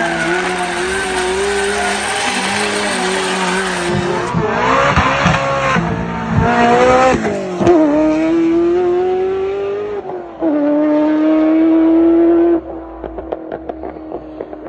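Ferrari F40's twin-turbo V8 running hard in several spliced clips: steady at speed, then revving up and down, then held at high revs. After that it cuts to a quieter stretch with a run of sharp pops.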